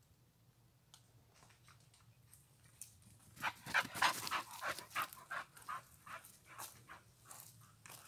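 Footsteps crunching on a twig- and needle-strewn forest path as a walker comes up close. Quiet at first, then a quick run of crunchy steps grows loud about three seconds in and fades off toward the end.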